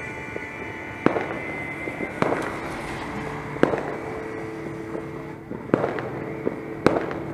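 Fireworks and firecrackers going off: about five sharp, loud bangs, irregularly a second or so apart, with a few fainter cracks between them, over steady background noise.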